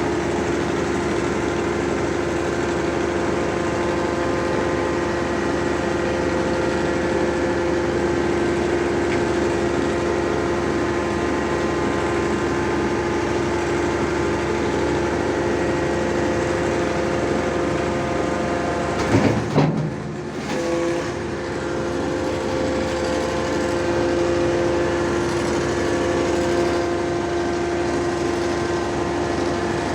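Hydraulic static pile driver's engine and hydraulic power pack running steadily with a constant whine. About two-thirds of the way in there is a brief loud clatter and the sound dips for a moment.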